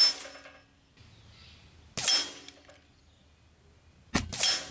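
Benjamin Armada regulated semi-auto .22 PCP air rifle firing a string of shots roughly two seconds apart: one at the start, one about two seconds in, and a quick pair near the end. Each sharp shot is followed by a short metallic ring.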